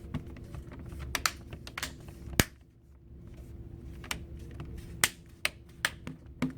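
Plastic clips of a Chromebook's screen bezel snapping into place as it is pressed down around the display, a series of about a dozen sharp, irregular clicks with the loudest about two and a half seconds in. A steady low hum underneath.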